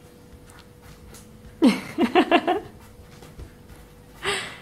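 A person's voice: a short burst of quick pulses about a second and a half in, then a brief breathy sound near the end.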